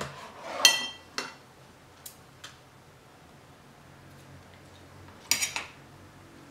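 Kitchen scissors handled and set down on a plastic cutting board: a few light clinks and clicks, the loudest a short ringing clink just under a second in, and a quick clatter of clicks about five seconds in.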